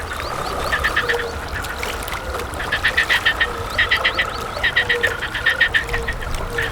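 Wild animal chorus: trains of four to six quick pulsed notes, repeated about every second, over a steady high hum and a lower short note that recurs regularly.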